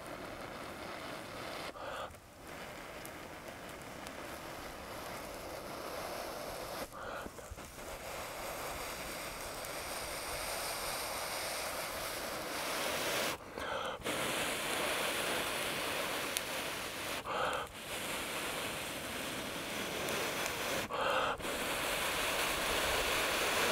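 A person blowing long, steady breaths into a birch-bark tinder bundle to nurse a char-cloth ember toward flame. Each blow is broken by a quick gasped inhale about every four to six seconds, and the blowing grows louder toward the end.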